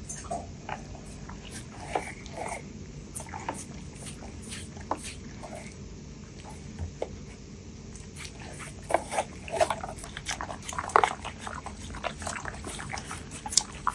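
A dog making short whimpers and yips among many sharp clicks and knocks, which grow louder and busier in the second half.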